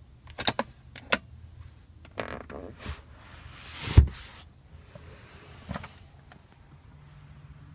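Sharp plastic clicks of a BMW X6's rear-armrest pop-out cup holder being folded away. About four seconds in comes a muffled thump, the loudest sound, with a short rush just before it, followed by a lighter click.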